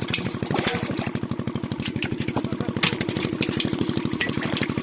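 Small engine running steadily with an even chugging beat, about a dozen pulses a second, with scattered light clicks over it.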